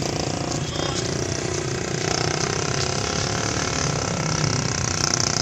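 A river boat's engine running steadily, a low rough drone.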